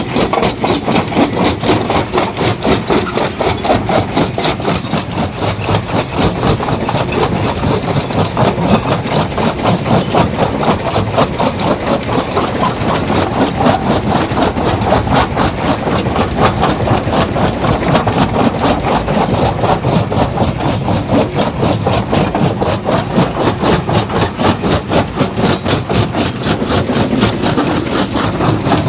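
Stone crusher running and crushing rocks: a loud, steady, fast rhythmic clatter over a continuous machine drone.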